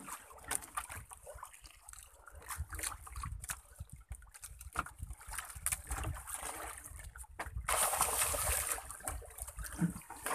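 Sea water sloshing and splashing against the side of a small outrigger boat, with a low rumble of wind on the microphone. Near the end a louder, steady rushing hiss sets in.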